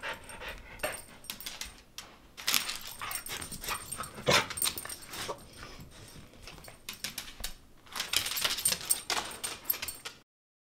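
Small fluffy dog excited at the offer of a walk, moving about: a run of quick clicks and scuffles, with one louder sharp sound about four seconds in and a flurry of clicks near the end.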